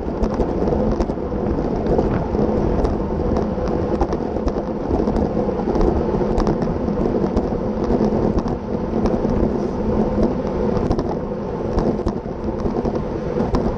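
Wind rushing over the microphone of a bicycle-mounted camera at racing speed: a dense, steady low rumble, with small scattered clicks and rattles through it.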